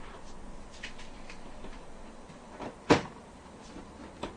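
PC case back panel being pushed and knocked into place: scattered light clicks, with one sharp loud knock about three seconds in and a smaller one near the end as it refuses to seat.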